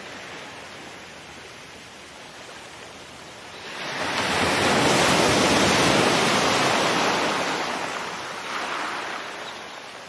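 Sea water washing past a moving boat, mixed with wind: a steady rush that swells loudly about four seconds in, then slowly fades.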